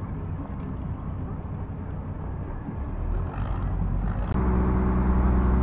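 Engine of a kempang passenger motorboat running with a low rumble. About four seconds in, after a click, it runs louder and steadier.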